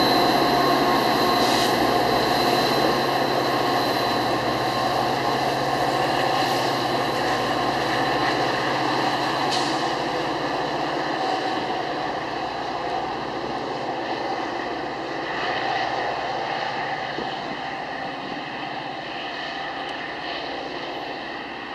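Metra EMD F40PH diesel locomotive pushing a commuter train away from the platform, its engine drone and the rumble of the cars fading steadily as it recedes.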